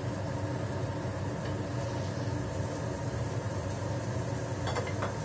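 Steady low kitchen hum with tofu frying in a pan on a gas stove. Near the end there are a couple of short clicks or scrapes as a spatula turns the tofu.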